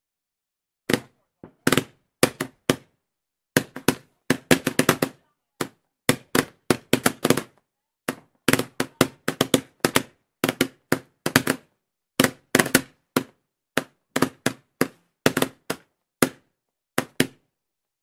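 Roman candles firing: a long, irregular run of sharp pops, about two a second with some coming in quick clusters, starting about a second in and stopping shortly before the end.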